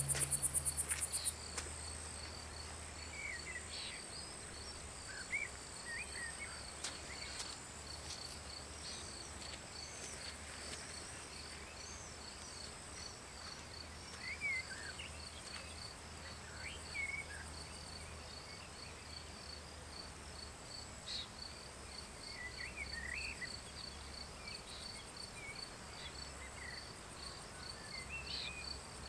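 Crickets chirping steadily in a rapid, even pulse over a steady high buzz, with scattered short bird chirps. Music fades out about a second in.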